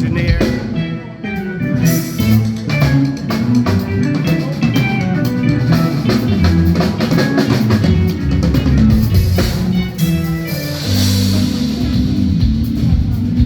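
A live band playing at a sound check, with drum kit and guitar over moving bass notes.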